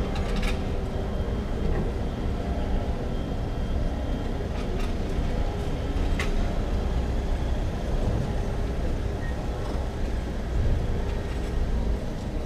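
Outdoor ambience of a city square: a steady low rumble with a few faint sustained tones, broken by a handful of short clicks about half a second, four and a half, and six seconds in.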